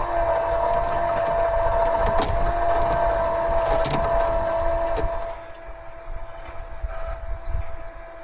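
A small motor running with a steady whine. The noise around it drops sharply about five seconds in, while the whine carries on.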